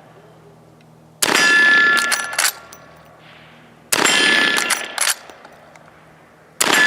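Three shots, evenly spaced about two and a half seconds apart, each followed by a ringing clang from a struck steel target; the last comes at the very end.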